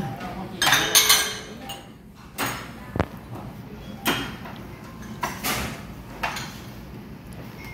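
Metal spoon scraping and clinking against a glass dessert cup of soft-serve ice cream: several short scrapes and one sharp clink about three seconds in, over restaurant background noise.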